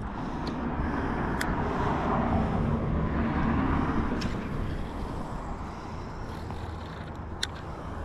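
Road traffic: a vehicle passes with a low rumble and tyre noise that swells for a few seconds and then fades. A few short sharp clicks come on top of it.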